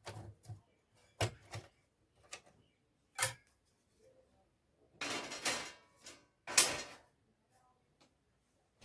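Clicks and knocks of hands taking apart an amplifier's casing and boards, followed by two longer handling noises about five and six and a half seconds in, the second the loudest.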